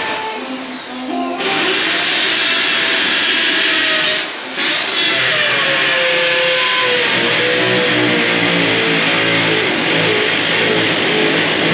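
Electric drill boring into a concrete wall, starting about a second in, stopping briefly and starting again, then running on under load with its motor pitch dropping.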